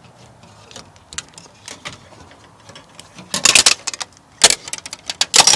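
Metallic rattling during prying with a crowbar to reach keys: a few light clicks, then three short bursts of loud jangling clatter, the last near the end.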